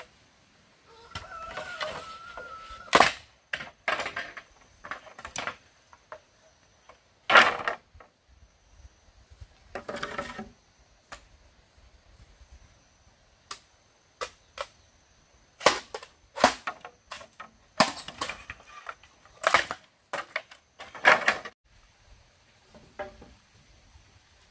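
Green bamboo poles being split and struck with a machete: a drawn-out rasping crack as a split runs along a pole near the start, then a string of sharp, irregular cracks and knocks of blade and bamboo.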